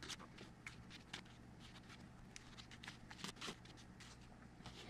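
Faint, irregular rustles and soft ticks of paper banknotes being handled and leafed through, over quiet room tone.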